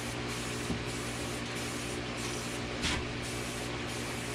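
Steady hiss with a low hum underneath, with a brief soft rustle about three seconds in.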